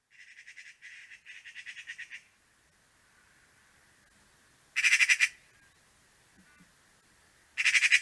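Eurasian magpie chattering: a softer rapid rattle lasting about two seconds, then two short, loud bursts of harsh chatter about three seconds apart.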